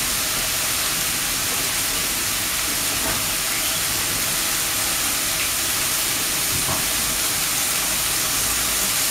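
Fresh wild mushrooms (chanterelles, boletes and russulas) sizzling steadily in olive oil in a nonstick pan over a high gas flame.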